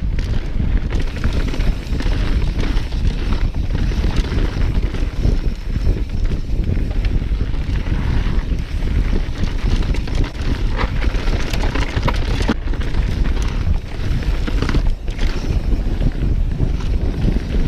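Wind buffeting the microphone of a camera riding a mountain bike on a fast descent, over the tyres rolling on a dirt trail. Short knocks and rattles of the bike over bumps come through here and there.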